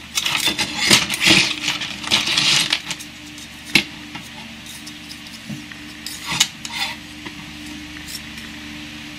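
A steel blade blank and a metal ruler clinking and scraping against rocks on a wooden board as they are moved: a dense clatter over the first three seconds, then one sharp click and a few lighter taps.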